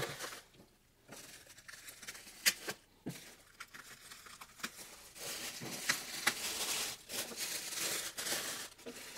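Shiny plastic packing wrap being peeled open and unfolded by hand: a couple of sharp rips about two and a half and three seconds in as the taped wrap comes apart, then a few seconds of steady crinkling as the sheet is spread out.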